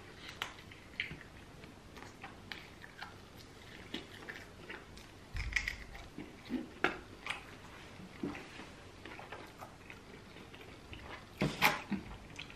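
Close-miked eating: chewing and biting food, with scattered short wet clicks and smacks, a low thump about five seconds in, and a louder pair of bites or smacks near the end.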